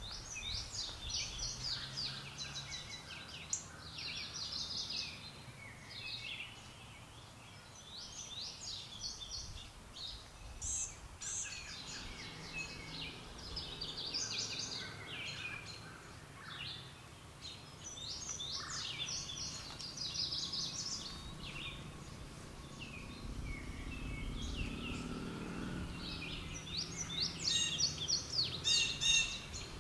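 Small songbirds singing and calling: bursts of quick, high chirping notes every few seconds, loudest near the end, over a steady low background hum. A low rumble swells and fades about two-thirds of the way through.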